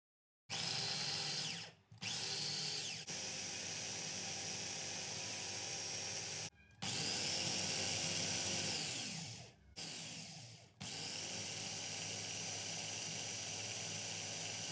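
Mitochiba CH-200 electric food chopper running in short pulses as its blade grinds shallots, garlic and chillies into a spice paste. The motor starts and stops about five times, its whine falling away each time the button is released.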